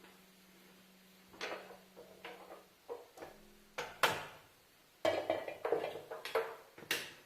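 Kitchen utensils and dishes knocking and clinking in an irregular series of sharp clatters, the loudest about four seconds in and a busy run of them a second later, over a faint steady hum.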